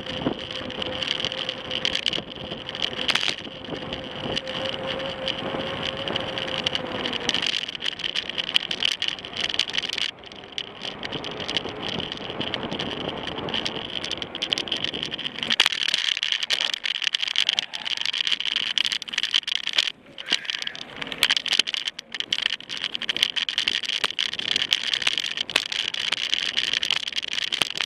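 Mountain bike riding, heard from the bike: wind and tyre noise on tarmac, turning from about halfway into frequent rattles and knocks of the bike over a rough dirt trail.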